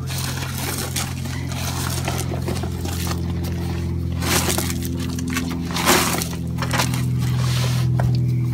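Background music: a plain instrumental tune held on low sustained notes that shift twice, with a few short scuffing noises over it.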